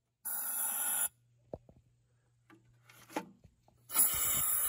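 Compressed air from an air-hose nozzle hissing into the spark-plug hole of a waterlogged Briggs & Stratton engine's cylinder to blow the water out: one short blast near the start and another starting near the end.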